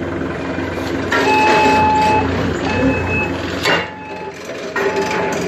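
Hyundai forklift engine running steadily while its back-up alarm beeps in repeated on-off pulses, starting about a second in. One sharp knock sounds a little past the middle.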